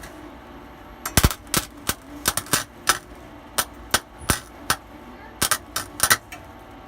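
Harbor Freight wire-feed welder's arc crackling in irregular sharp pops, about three a second, as the wire strikes and stutters against the metal.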